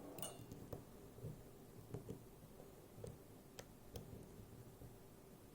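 Faint, scattered clicks and light metallic scraping of a lock pick probing the bottom-left row of pins in a Miwa JN lock, about half a dozen small ticks over a few seconds.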